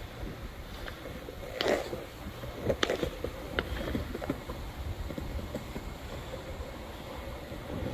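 Skateboard wheels rolling fast on smooth polished concrete, a steady rumble with wind on the microphone. A few sharp clicks and knocks come between about two and four and a half seconds in.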